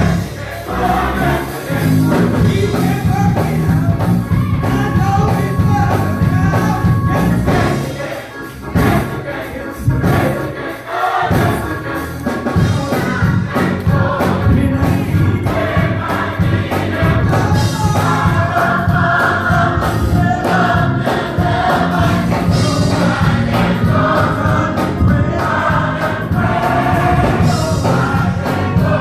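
Gospel choir singing with a full, rhythmic band backing.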